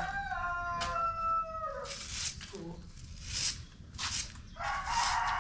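A rooster crows once, a long call that falls slightly and ends about two seconds in. Then a stiff bundled broom swishes across brick paving in about four strokes. Another drawn-out call starts near the end.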